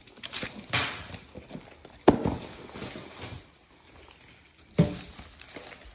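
Things being set down and handled on a granite countertop: three knocks with rustling between them, the sharpest about two seconds in.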